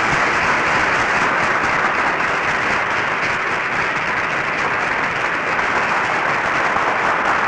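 A large crowd applauding, a dense, steady clapping that carries on without a break.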